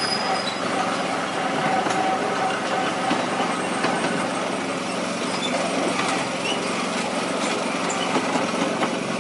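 7¼-inch gauge miniature railway locomotive running along the track: a steady engine hum with faint clicks from the wheels on the rails.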